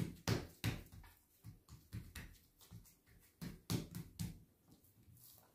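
Hands patting and pressing a round of yeast dough flat on a lightly oiled granite countertop: a run of pats, two or three a second, thinning out near the end.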